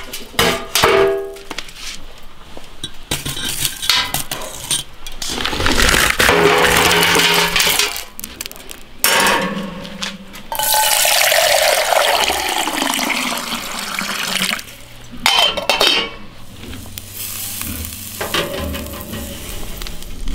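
Clinks and knocks of metal, charcoal and an enamel mug being handled at a charcoal grill, with a few seconds of water pouring or splashing midway.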